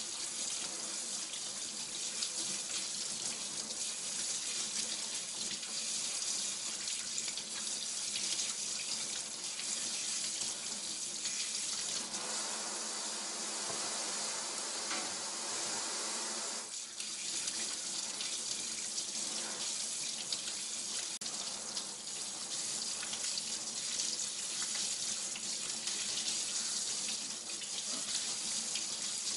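Kitchen faucet running steadily into a stainless steel sink, the stream splashing over quinces being scrubbed by hand. The rush of water grows fuller for a few seconds around the middle.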